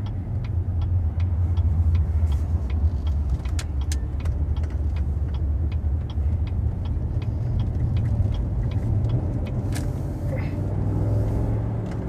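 In-cabin noise of a 2016 Cadillac Escalade ESV under way: a steady low road and engine rumble. Over it a turn signal clicks evenly at about three ticks a second, stopping about eight seconds in.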